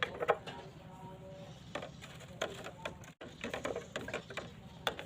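Metal pieces clinking and knocking as they are handled, about a dozen irregular knocks, some leaving a short ring; a brief gap just after three seconds in.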